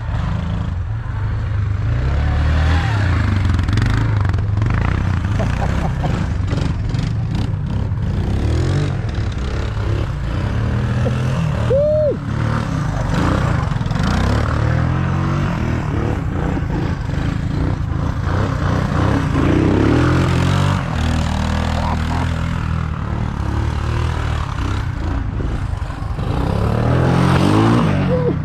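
All-terrain vehicle engine being ridden hard, its revs climbing and dropping back again and again.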